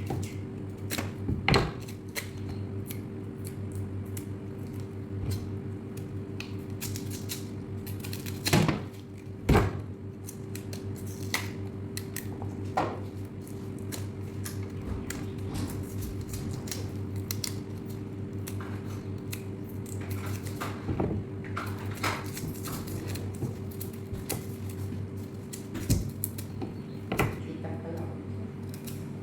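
Knife cutting and scraping the tough peel off a raw cassava root: many short scrapes and clicks, with a few louder knocks, over a steady low hum.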